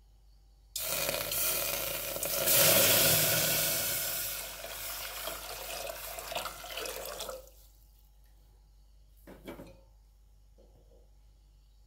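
Water poured from a jug into an aluminium pot of dry-roasted chilli powder, a steady pour that starts about a second in, is loudest around three seconds in and fades until it stops at about seven and a half seconds. Two brief faint knocks follow.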